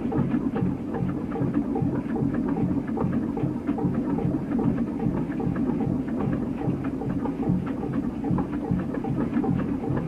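Sponge-diving boat's slow-running engine chugging in an even rhythm of about two to three beats a second, with light mechanical clicking on top.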